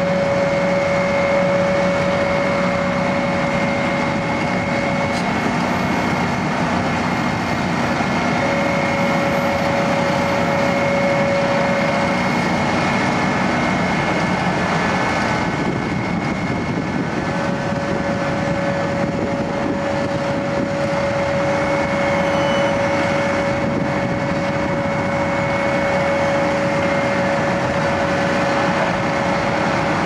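Vögele Super 1800-2 asphalt paver and a tipper semi-trailer truck running steadily while paving, a continuous diesel machine noise with a constant whine on top that drops out for a few seconds twice.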